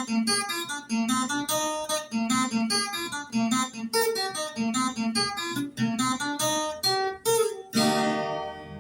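Viola caipira, the Brazilian ten-string guitar, played solo: a quick run of plucked notes, ending near the end on a strummed chord left to ring out.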